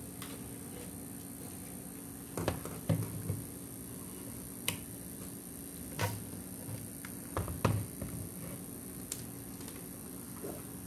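Scattered knocks and clicks as a digital multimeter and its test leads are handled on a work table, over a steady background hum.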